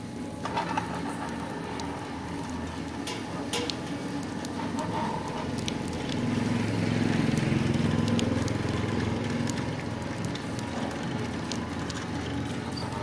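Small belt-driven motor running steadily with a low hum that grows louder for a few seconds midway, with scattered light clicks.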